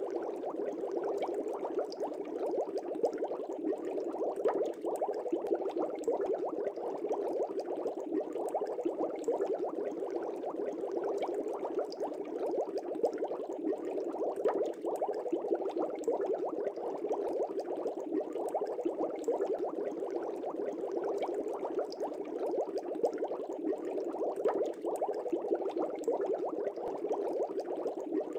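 Steady bubbling water: a continuous dense stream of small bubbles, even in level throughout.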